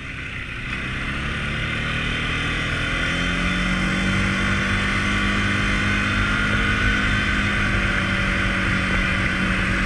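Can-Am Outlander 450 ATV's single-cylinder engine pulling under way, getting louder over the first few seconds and rising gently in pitch, then holding a steady drone as the quad runs along a dirt trail.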